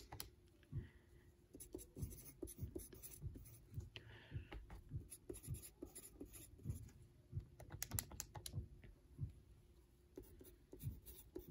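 Wooden pencil writing numbers on paper: faint, short scratching strokes in irregular bursts with brief pauses between.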